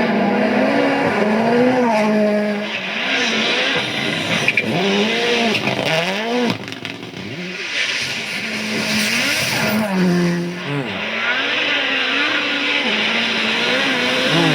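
Rally car engines revving hard, their pitch rising and falling again and again through gear changes and passes, over a steady hiss.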